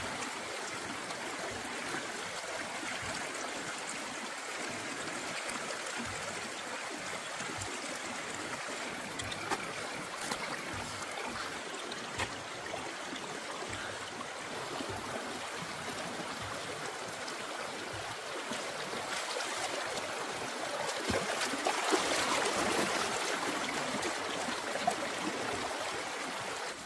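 Shallow rocky stream running and trickling over stones, growing louder for a few seconds near the end, with a few short splashes in the water.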